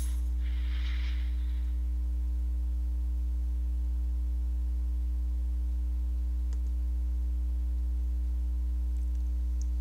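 Steady low electrical mains hum with fainter higher steady tones above it. A short soft rush of noise about a second in and a tiny click in the middle.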